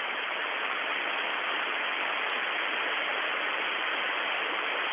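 Steady hiss of static on an open space-to-ground radio channel between transmissions.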